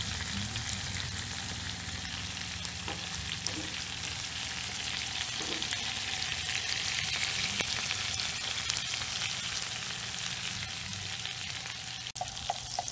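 Mutton snapper fillets sizzling in a frying pan of melting butter, lemon juice and capers: a steady crackling sizzle that swells a little midway, with a low hum underneath.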